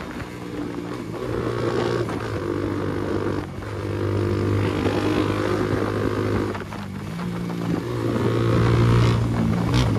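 Motorcycle engine running while riding, heard from on board the bike, its level dipping briefly twice, about three and a half and seven seconds in.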